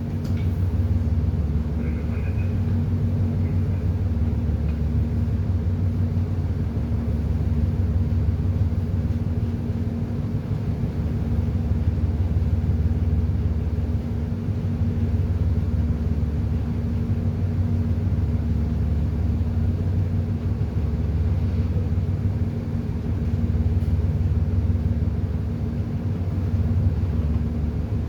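Ship's engine running steadily, heard on board as a constant low rumble with a steady hum.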